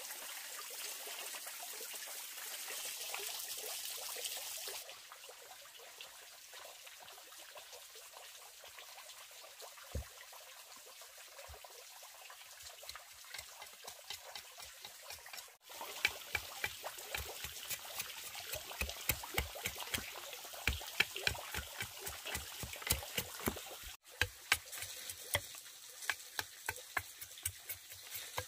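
Water trickling into a pond for the first few seconds. After a quieter stretch with a few scattered knocks, a fast, regular run of sharp knocks, about three a second, from a large knife chopping and splitting a section of bamboo.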